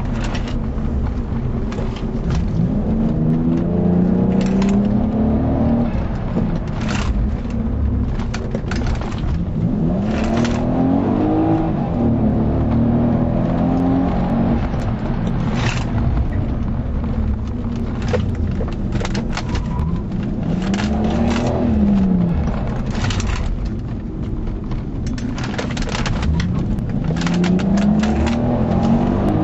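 Toyota Aristo V300's twin-turbo 2JZ-GTE straight-six driven hard in a sprint, its note climbing several times as the car accelerates and dropping between climbs, over a constant low rumble. Frequent short sharp clicks and crackles throughout.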